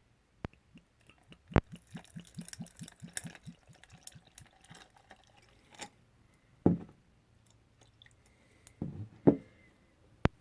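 Gin and tonic being poured into a glass, the liquid glugging in quick even pulses for a second or two. Then a few dull knocks and a sharp click near the end.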